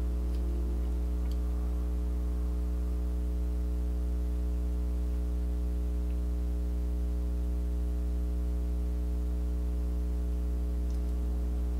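Steady electrical mains hum: a low buzz with a stack of evenly spaced overtones, unchanging throughout, with a couple of faint ticks in the first second or two.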